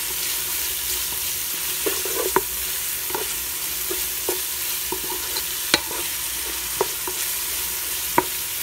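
Chopped onion and garlic sizzling in hot oil in a pan as a wooden spatula stirs them, with light knocks of the spatula against the pan every second or so; the sharpest comes a little before six seconds in.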